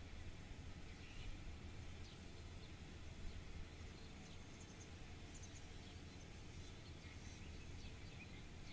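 Faint outdoor ambience: a steady low rumble with scattered brief bird chirps.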